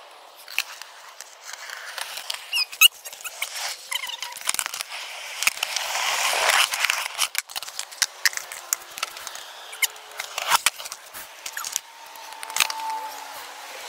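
Skateboard on concrete: wheels rolling with a rushing noise that swells around the middle, among many scattered clacks and knocks of the board.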